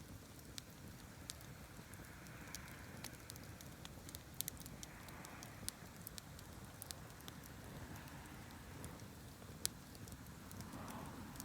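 Campfire crackling faintly: scattered sharp pops and snaps of burning wood, a couple louder about four and a half and nine and a half seconds in, over a low steady background noise.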